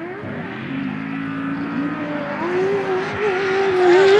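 Off-road race vehicle's engine running hard. Its pitch steps up about halfway through and keeps climbing as it gets louder toward the end.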